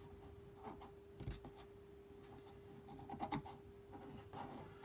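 Scissors snipping through fine dark blue nylon net, a handful of faint, scattered cuts with light rustling of the net.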